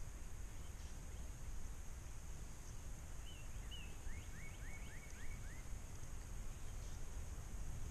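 Outdoor ambience: a steady low wind rumble on the microphone, with faint bird calls over it. There are a couple of short notes about three seconds in, then a quick run of about six rising chirps.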